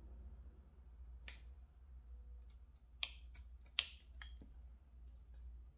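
Small craft scissors snipping a paper sticker, a handful of short, sharp clicks scattered between about one and four and a half seconds in.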